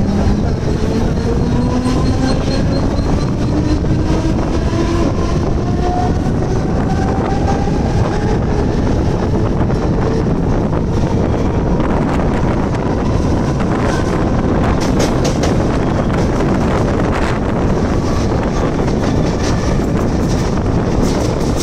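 Mumbai harbour line electric local train running, its motor whine rising in pitch through the first several seconds as it picks up speed over a steady rumble of the wheels. In the second half, sharp clicks of the wheels over rail joints come in groups, most of them near the end.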